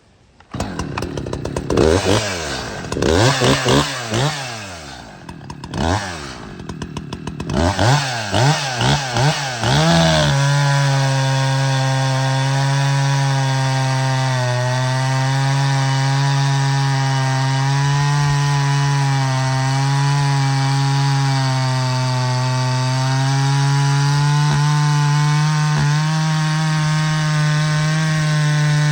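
Stock Echo 620 two-stroke chainsaw revved in quick throttle blips, then held at a steady high pitch from about ten seconds in. The pitch sags and recovers slightly as the chain works through a cut in wood.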